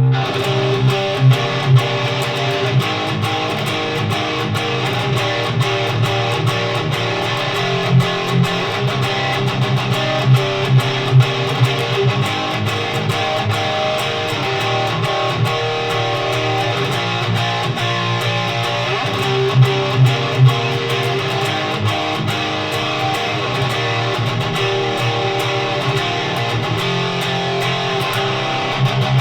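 Electric guitar played through a Noise Pollution Plush Box high-gain overdrive pedal: a metal riff of heavily distorted, sustained chords with sharp accents.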